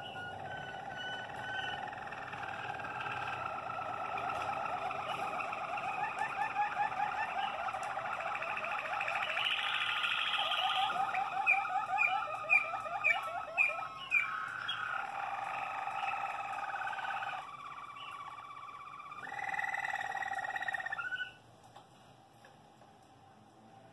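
Malinois Waterslager canaries singing: a continuous song of held tones and fast rolls and trills, with a run of sharp, quick descending chirps midway. The song cuts off abruptly near the end.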